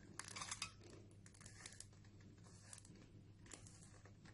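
Faint plastic clicking and rattling of a 3×3 Rubik's cube as its layers are turned by hand, in several short bursts, the loudest about half a second in.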